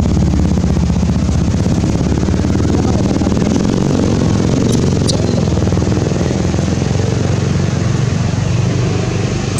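Steady low rumble of a running engine, unchanging in level, with two sharp clicks about halfway through.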